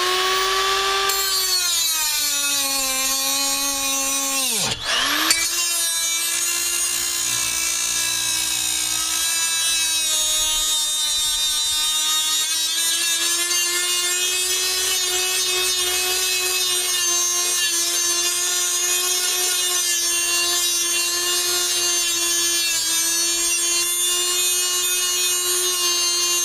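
Small electric angle grinder with a cutoff wheel cutting through metal on a swing set frame: a steady high whine that sags in pitch under load, dips out briefly about five seconds in, then runs on steadily and winds down at the end.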